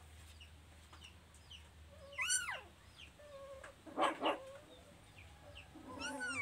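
Chickens calling: short falling peeps about twice a second, typical of chicks, with louder calls over them. A rising-and-falling call comes about two seconds in, two sharp clucks around four seconds, and another call near the end.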